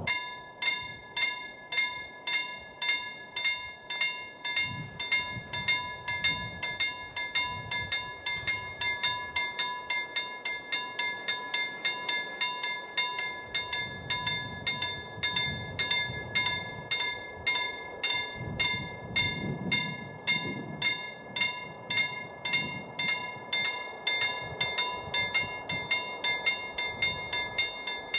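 Level crossing warning bell starting up and ringing with rapid, evenly spaced strokes, about two a second, each with a ringing tone. It signals an approaching train and the lowering barriers.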